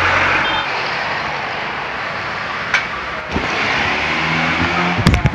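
Steady rush of passing street traffic, with a couple of sharp clicks a little under three seconds in and a short loud knock near the end.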